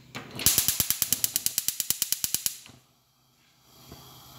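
Gas stove's electric spark igniter clicking rapidly, about ten clicks a second for about two seconds, as the burner is lit. The clicks are followed by a brief hush and then a faint steady hiss.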